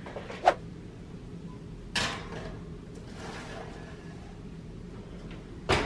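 Wall oven being opened and a small baking tray of cookie dough set onto its wire rack: a sharp click, a metal clunk about two seconds in, some faint handling noise, then a loud knock near the end.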